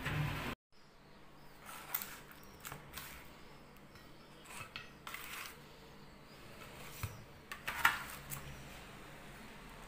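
A few light clicks and knocks of a spatula against a baking tray and a plate as baked msemen are lifted and set down, the loudest knock near the end.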